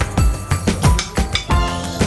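Background music with a steady beat: regular kick-drum thumps and crisp ticks under held melodic notes.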